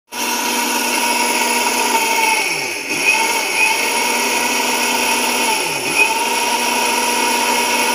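Sahara Pride mixer grinder's motor running at full speed with its small stainless-steel dry-grinding jar, milling a dry ingredient into fine flour-like powder in about 7-8 seconds. It is a steady high whine that briefly sags in pitch and picks up again twice.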